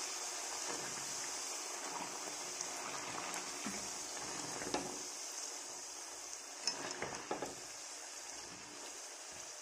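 Tomato puris deep-frying in hot oil with a steady sizzle, and a few light clicks of a wire skimmer against the pan, once about five seconds in and a few more around seven seconds.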